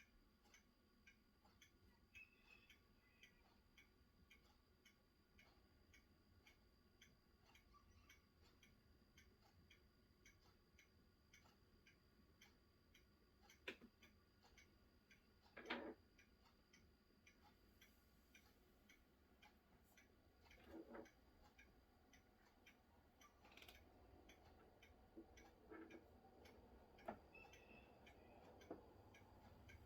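Very faint, regular ticking at an even pace, with a few louder single clicks.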